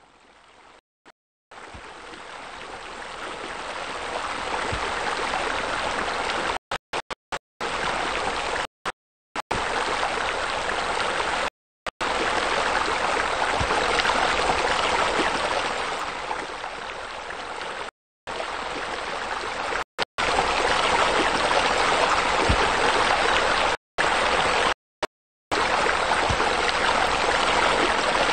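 Steady running water, like a stream or spa spillover, fading in over the first few seconds. It cuts out abruptly to silence for brief moments many times.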